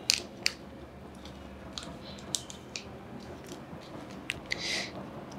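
Foil-and-paper suture packet being peeled open and handled: scattered crisp crinkles and clicks, with a brief rustle near the end as the paper needle folder is drawn out.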